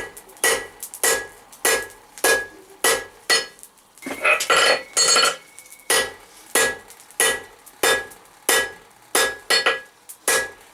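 Hammer blows on hot 10 mm square steel on an anvil, tapering the end of the bar, in a steady rhythm of about one and a half strikes a second, each with a short metallic ring.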